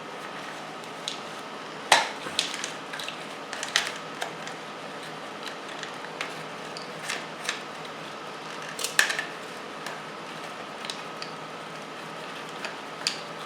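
Wires and connectors of a motorcycle wiring harness being handled and pulled apart: scattered small clicks and rustles, the sharpest about two seconds in and about nine seconds in, over a steady faint hum.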